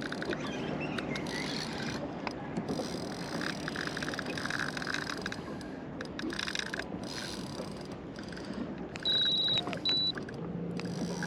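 Steady wind and water noise around a small fishing boat while a fish is played on rod and reel. Two short high electronic beeps sound about nine and ten seconds in, and a low steady hum starts near the end.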